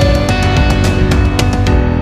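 Loud background music with a fast, steady beat.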